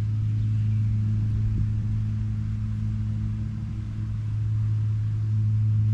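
Steady low machine hum on one constant pitch.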